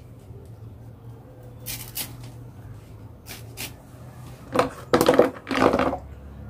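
Kitchen utensils and containers being handled: scattered light clicks and knocks, then three louder strokes in quick succession near the end.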